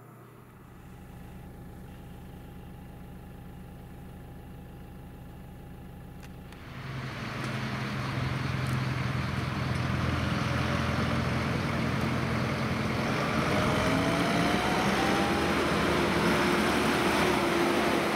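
Fendt tractor with a silage trailer approaching on a lane, its engine running and growing louder as it draws near, with a rising whine partway through. This comes in suddenly about a third of the way in, over a quieter steady hum.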